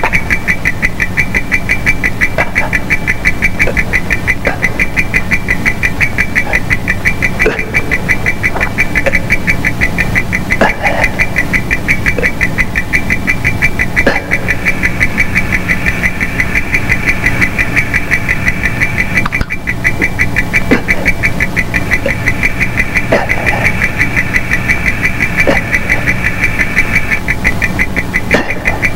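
Electronic sci-fi machine sound effect: a rapid, steady pulsing high tone over a low hum, with a few faint clicks scattered through it.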